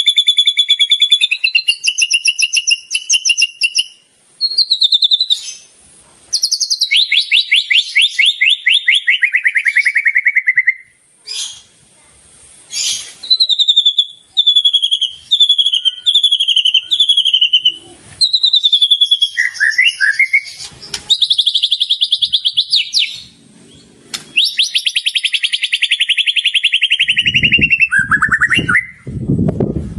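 White-rumped shama (murai batu) singing a long, varied song of clear whistles, fast trills and runs of repeated down-slurred notes, the kind of mimicked 'isian' phrases a master recording is played to teach caged shamas. A few low thuds come near the end.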